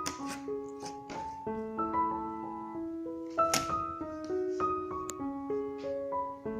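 Soft piano melody of single held notes, with a few short sharp pops of slime bubbles over it, the loudest about three and a half seconds in.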